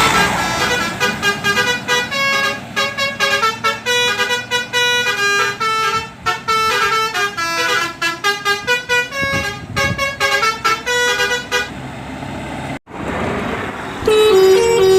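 Musical multi-tone bus horn playing a fast melody of short stepping notes, which stops about 12 s in. After a short hiss and a brief dropout, a lower-pitched horn tune starts near the end.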